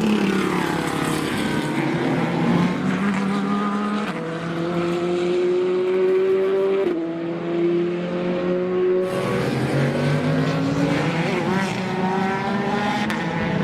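Chevrolet Corvette C8.R race car's naturally aspirated flat-plane-crank V8 at racing speed, its note climbing under acceleration and dropping sharply at an upshift about seven seconds in.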